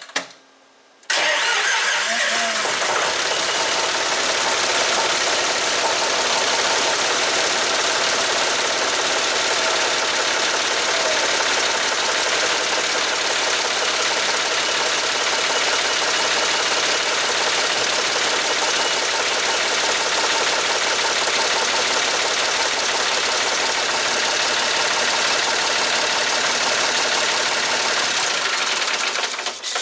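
John Deere 5400's three-cylinder diesel engine turned over on the starter after its fuel system was bled of air, then held at a loud, steady run, cutting off near the end. It is the start attempt that follows a dry fuel filter having left the engine with a no-start condition.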